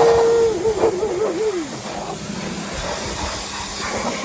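Pressure washer spray from a narrow 15-degree nozzle hissing steadily against a truck's body. In the first two seconds a louder single tone holds, then wavers and slides down in pitch before dying away.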